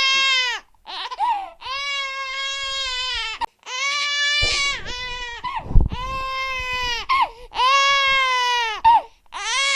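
Infant crying hard, in a string of long, high wails of one to two seconds each with short gasping breaths between them. A brief low bump comes about six seconds in.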